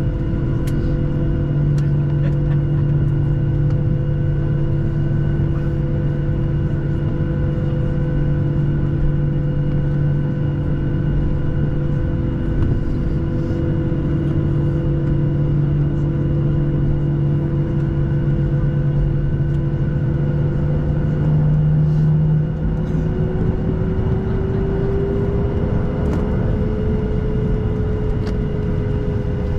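Cabin noise inside a Boeing 737-800 over the wing while it taxis after landing: a steady drone from the engines and cabin air, with several held tones. About 22 seconds in, the lower tones fade and a new tone slowly rises and then falls.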